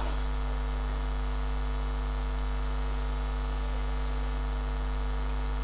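Steady low electrical hum, with a constant buzz made of a few fixed tones, typical of mains hum in an amplified sound system.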